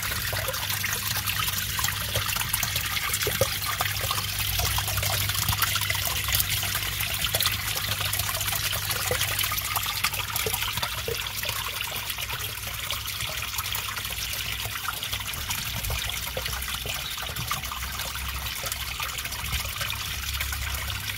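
Turtle-tank filter water trickling and splashing steadily into the tank, over a low steady hum.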